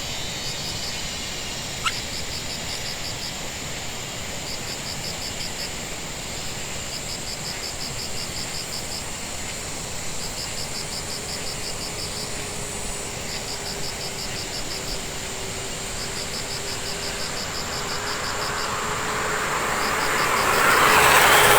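Outdoor ambience: a small animal chirps in short, rapid high-pitched trains of pulses every second or two over a steady hiss. A rushing noise swells near the end.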